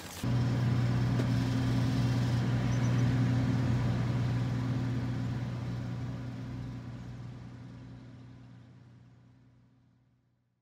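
A steady low engine drone that starts abruptly and slowly fades away to silence over the last few seconds.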